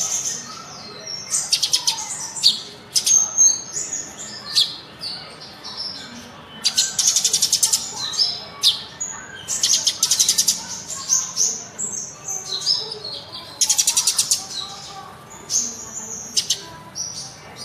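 A sunbird, known to bird keepers as 'kolibri ninja', singing: bursts of fast, rattling, high-pitched trills lasting under a second, repeated every few seconds, with quick chirps and short whistles between them.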